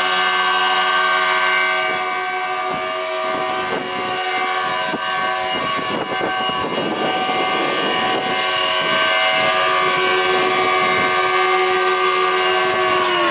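Background music: a sustained chord of several held tones at a steady pitch, with a rougher, flickering layer through the middle.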